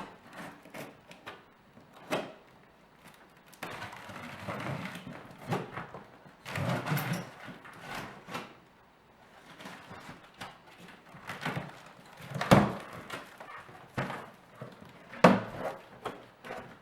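Cardboard shipping box being opened and unpacked by hand: rustling and scraping of cardboard and packing material, with scattered knocks and a few sharp thumps, the loudest about twelve seconds in and another about fifteen seconds in.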